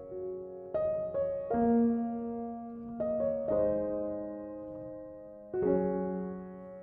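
Background piano music: soft chords and notes that sound and slowly fade, with new notes entering every second or two.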